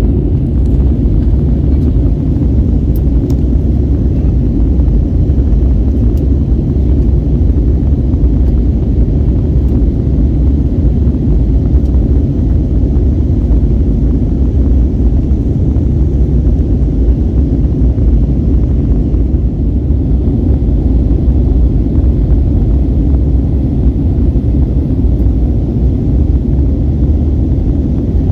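Steady low rumble of engine and airflow noise inside the cabin of an Airbus A321neo airliner climbing after takeoff.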